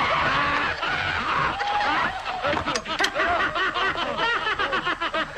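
Cartoon voices laughing in rapid, high-pitched ha-ha-ha runs, several laughs overlapping, on an early-1930s cartoon soundtrack.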